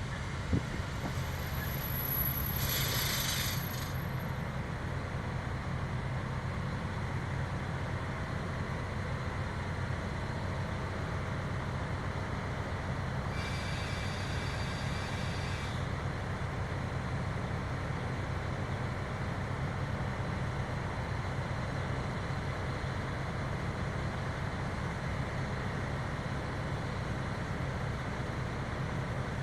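KiHa 183 series diesel railcar running at a standstill with a steady low engine rumble. A short hiss of released air comes about three seconds in, and a fainter one around fourteen seconds.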